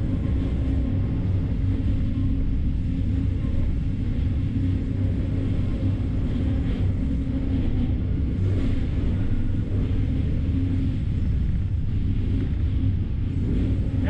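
Sawmill machinery running: powered roller conveyors and the band headrig mill, making a constant low rumble and hum. A couple of faint knocks come through about halfway.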